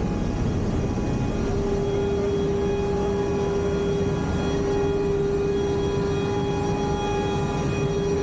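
Military transport aircraft's engines running steadily, heard from inside the cabin as a loud, even drone. A steady hum tone joins in about a second and a half in and holds.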